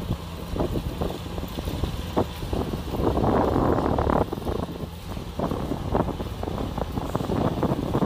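Kubota DC-60 rice combine harvester's diesel engine running under load as it cuts ripe rice: a steady low rumble with irregular crackling over it. A louder rushing noise swells about three seconds in and drops away about a second later.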